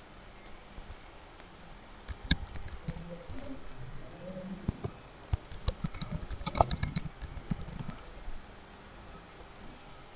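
Typing on a computer keyboard: a run of key clicks starting about two seconds in, densest in the middle and stopping a couple of seconds before the end.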